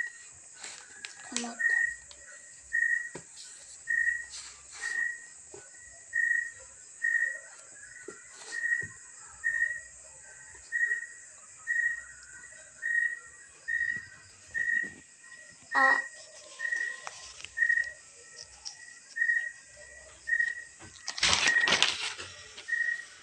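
A short, high whistle-like note repeating steadily about once a second, with a loud rustle near the end.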